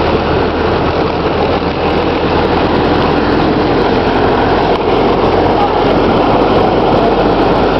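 Ford Model T snowmobile under way, its four-cylinder engine running steadily.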